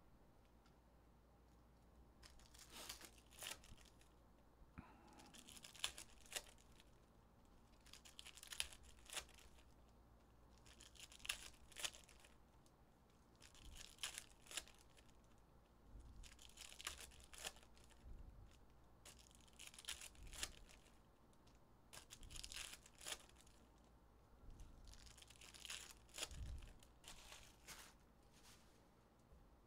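2023-24 Panini Select basketball hobby packs having their foil wrappers torn open and crinkled. The sound comes as faint short bursts, roughly every three seconds, about nine times.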